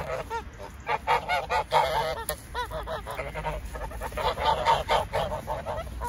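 A flock of white domestic geese honking, many short calls overlapping in quick succession.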